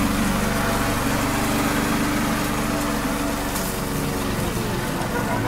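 Walk-behind lawn mower running steadily as it is pushed across grass, an even motor hum.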